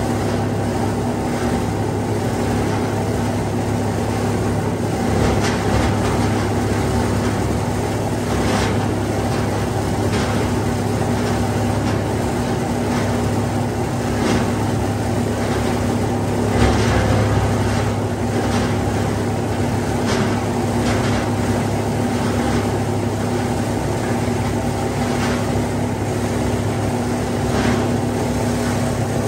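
Plastic film grinder running with a steady hum, its rotor blades cutting against the stationary blades, with irregular crackles as plastic film and bags are fed in and shredded.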